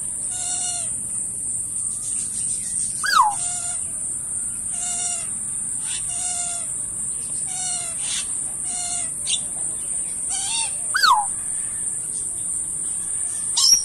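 Animal calls: a string of short, pitched calls about a second apart, two of them louder and sliding down in pitch, about three seconds in and again near the end. A steady high-pitched hiss runs beneath them.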